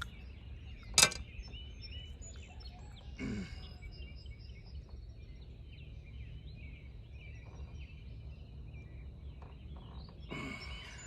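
Outdoor ambience: small birds chirping over a low steady rumble of wind, with one sharp click about a second in.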